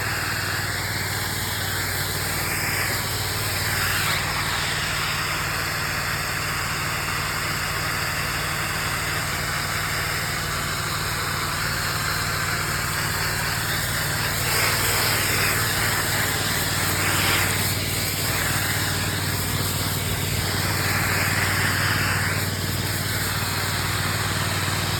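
Pressure washer engine running steadily while the wand sprays pre-treatment chemical, the spray hiss swelling and fading as it sweeps across the surface.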